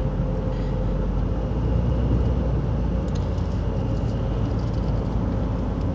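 Steady road and engine noise from inside a moving car's cabin, a low rumble with tyre hiss.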